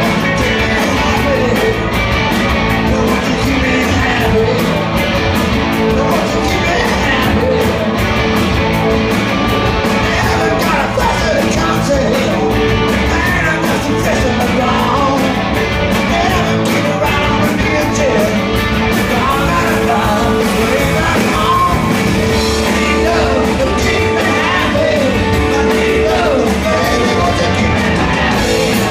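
Live rock band playing a song: electric guitars, bass guitar and drums with a sung vocal, loud and steady throughout.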